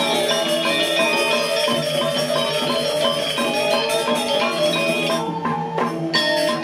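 Balinese gamelan playing: bronze metallophones and gongs struck in quick, dense runs of ringing notes over a steady low tone. About five seconds in the high ringing thins out briefly, then a sharp accented stroke brings the full ensemble back near the end.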